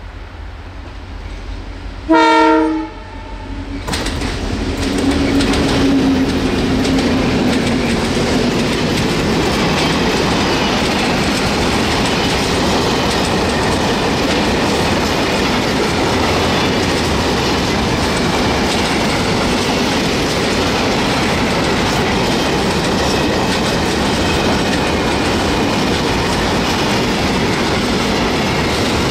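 A short blast on the horn of an approaching pair of series 664 (EMD G26) diesel locomotives, then the locomotives' engines going by with a falling pitch. After that comes the steady rolling noise and wheel clatter over the rail joints of a long train of empty open freight wagons passing close by.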